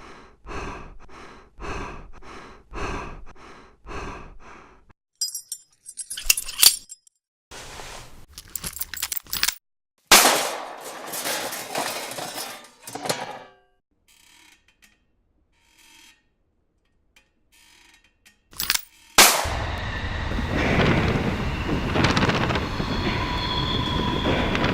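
Home-made Foley sound effects: six evenly spaced thuds about a second apart, then a cluster of clicks and metallic rattles and a sharp hit with a rustling tail about ten seconds in. After a near-quiet pause, a loud hit opens onto a steady, dense rumble with a few ringing tones in it.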